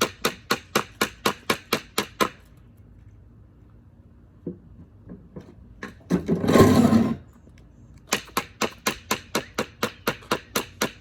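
A bucket drummed with a hockey stick in a fast, steady rhythm of about four strikes a second. The drumming stops, a few scattered knocks follow, then a loud rough clatter lasting about a second. The fast drumming starts again near the end.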